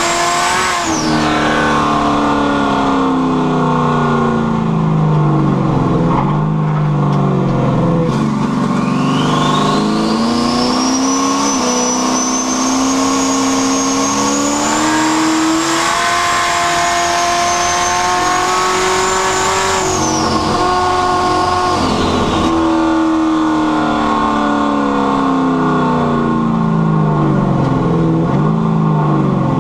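Carbureted car engine with a rear-mounted turbocharger, driven under load. The engine note falls away at first, then climbs steadily and holds, with a high turbo whine rising alongside it. Near the end the note drops off again.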